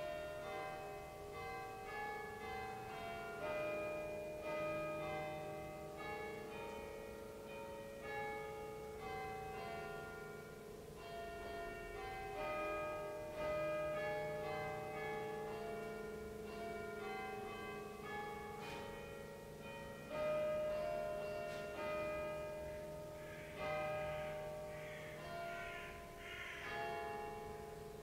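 Bells ringing in a slow, uneven sequence, a new strike about every second, the tones overlapping as they ring on.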